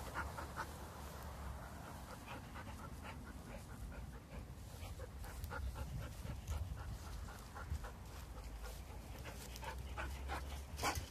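Golden retriever panting, a steady run of quick breaths.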